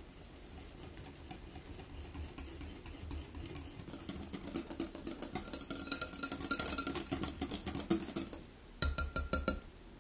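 A mixing utensil beating rapidly against a glass mixing bowl, the glass ringing faintly with each quick stroke. The strokes grow louder about halfway through, pause briefly near the end, then come in one short final burst.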